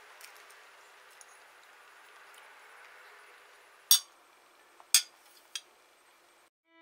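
Metal cutlery clinking against ceramic plates: a few sharp clinks starting about four seconds in, the first two loudest and about a second apart, then a lighter one, over a faint hiss.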